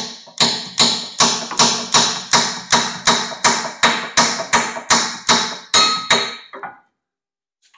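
Hammer blows on a triple-square bit set in an M14 brake caliper carrier bolt, driving the bit into the bolt head. There are about twenty sharp metallic taps, roughly three a second, each with a short ring, and they stop about six and a half seconds in.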